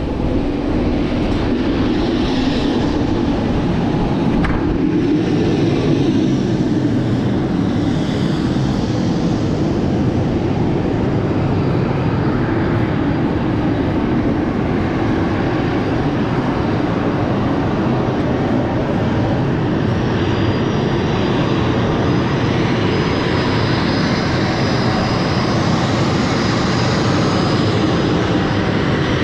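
Loud, steady jet-turbine noise from aircraft running on an airport apron. A thin, steady high whine joins in about two-thirds of the way through.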